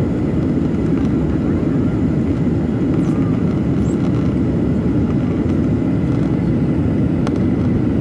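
Steady cabin noise inside a Boeing 737-800 in flight: the deep, even rumble of its CFM56 jet engines and the airflow over the fuselage, heard from a window seat over the wing.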